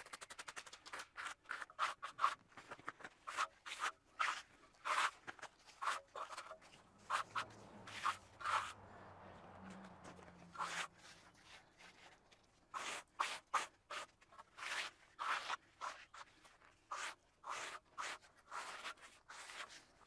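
Hand trowel scraping and smoothing wet concrete in short, irregular strokes, working the fresh slab around a floor drain. A faint low hum comes in for a few seconds partway through.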